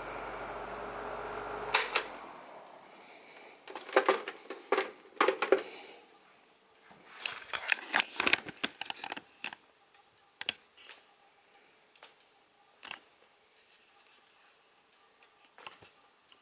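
Galaxy model 2150 12-inch oscillating table fan running with a steady motor hum, which stops with a click about two seconds in and dies away. After it come scattered clicks and knocks, bunched in two clusters and then single ones.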